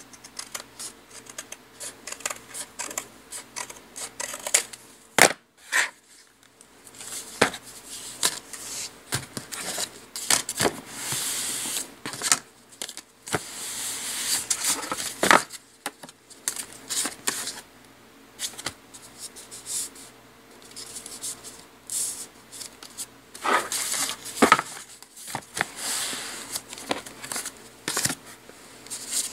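White cardstock being handled and smoothed by hand: paper sliding and rustling, with many sharp taps and clicks as sheets and tools are set down.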